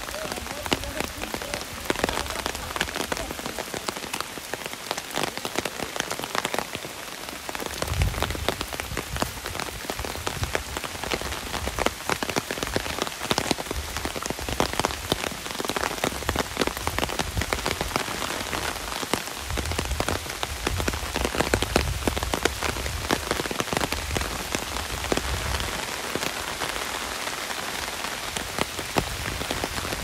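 Heavy rain falling on an umbrella, a dense steady hiss packed with separate drop hits close by.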